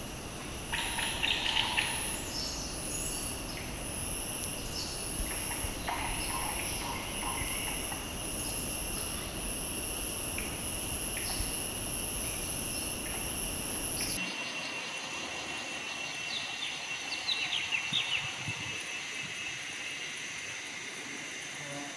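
Tropical forest ambience: insects buzzing in regular high-pitched pulses over a steady trill, with a few bird chirps and a low rumble underneath. About two thirds of the way through, the sound changes abruptly to a quieter ambience with a steady trill and a short burst of bird chirps.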